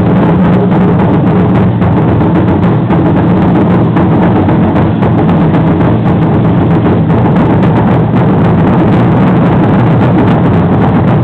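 Drums beating for an Aztec ceremonial dance, loud and without letup, with a dense patter of quick clicks over them.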